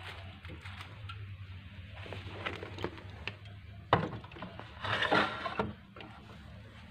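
Drink cans and cartons being put into a refrigerator door shelf: light clicks, a sharp knock about four seconds in, then a short burst of clattering and rustling, over a low steady hum.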